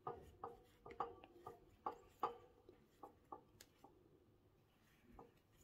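Faint, irregular ticking and rubbing of a metal crochet hook working yarn, a dozen or so soft ticks in the first four seconds, then almost nothing.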